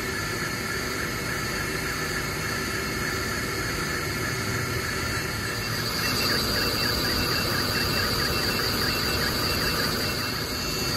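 Ortur Laser Master 3 20 W diode laser engraver running a job: a steady rushing hiss from the machine. About halfway through, a high whine and short repeated tones come in as the head's motors drive it across the work.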